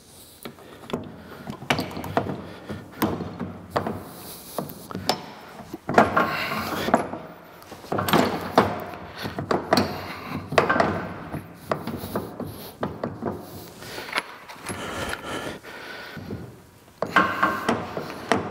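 Irregular clunks, knocks and scraping of wood blocks and metal lathe parts being shifted by hand as the apron of a Monarch Model K lathe is raised into place under the saddle. The loudest knocks come about six, eight and ten seconds in.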